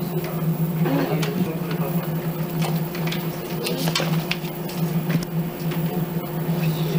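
Office room tone: a steady low hum with scattered light clicks and paper rustles as pages are turned.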